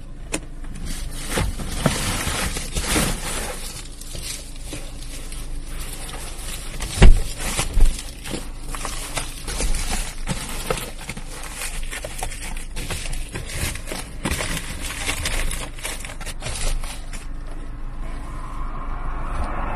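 Reflective bubble-foil window shades rustling and crinkling as they are handled and pressed into place over a car's windows from inside. There are many small clicks and scrapes, and two loud knocks about seven and eight seconds in.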